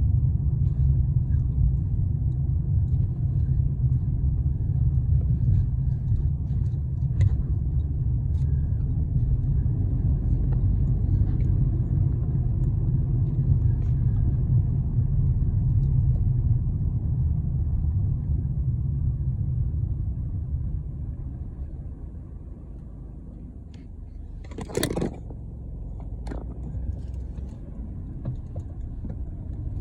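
Low road and engine rumble inside a moving car. It grows quieter about two-thirds through as the car slows. A short sharp sound comes near the end, followed by a small click.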